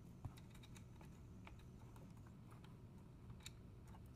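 Faint, scattered small clicks and ticks of a screw and screwdriver being handled against the metal chassis of a car head unit during reassembly, with a slightly sharper click about a quarter second in.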